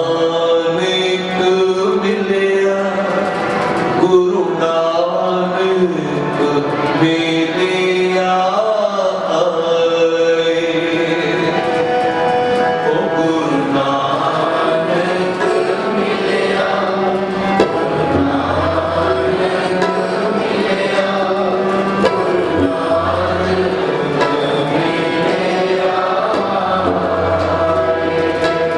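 Sikh kirtan: male voices singing to two harmoniums and a tabla, the harmonium chords held under the voices and the tabla keeping the beat. Deep tabla bass strokes ring out in the second half.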